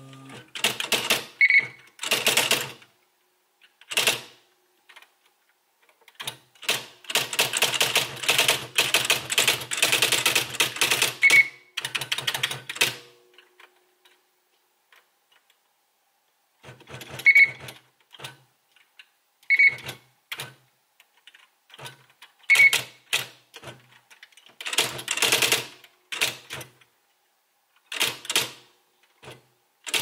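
Smith Corona SL600 SpellRight electronic daisy-wheel typewriter typing in bursts of rapid strikes. The longest run lasts about six seconds, there is a pause of a few seconds near the middle, and a few short high beeps come between runs.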